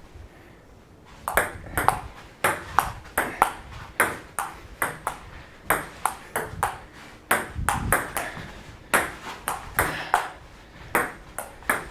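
A table tennis rally: the ball clicks off the paddles and the table in quick alternation, about three hits a second, starting about a second in.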